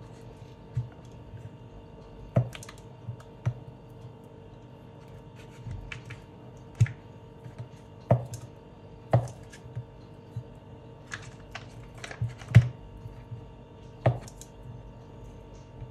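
Knife cutting fish into pieces: irregular sharp knocks and clicks, roughly one a second, over a faint steady hum.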